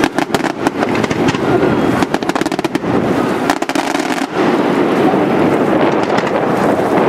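Daytime fireworks display: rapid volleys of small aerial bursts and firecracker reports, many sharp bangs in quick succession. About four seconds in the separate bangs thin out and a steadier, denser crackling din takes over.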